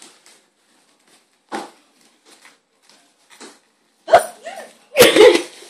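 Young Australian magpie giving a few short calls, the last two, about a second apart near the end, much the loudest.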